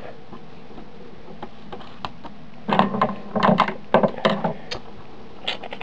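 Composite AV cable plugs and a small USB capture card being handled: after a quiet stretch, a run of small plastic clicks and knocks begins nearly three seconds in, with a couple more near the end.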